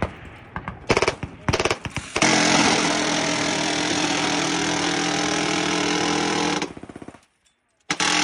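A minigun fires. First come a couple of brief bursts. Then it fires one continuous burst of about four and a half seconds, the shots too fast to tell apart, so they merge into a steady buzzing roar. The burst tails off at about seven seconds, and another short burst follows near the end.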